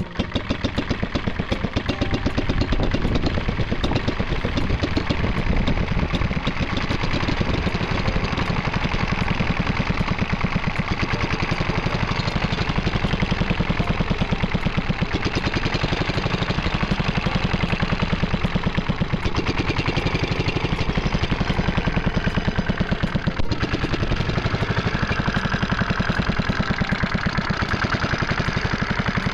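1.5 hp Fairbanks-Morse type Z 'salt block' hit-and-miss stationary engine running steadily, with an even, regular beat.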